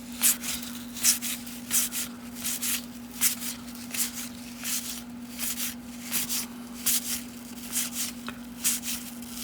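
Baseball cards from a wax pack being flipped through one at a time, each card sliding off the stack with a short papery swish, about one every three-quarters of a second. A steady low hum sits underneath.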